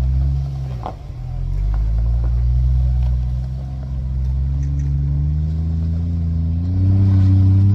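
Land Rover Defender 110's engine pulling under load as it crawls up a rocky dirt climb, the revs dipping about a second in and then rising gradually, loudest near the end. A short knock sounds about a second in.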